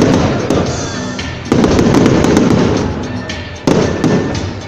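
Aerial fireworks bursting overhead: two loud booms, about one and a half and three and a half seconds in, each rolling away, among crackling stars. Music plays underneath.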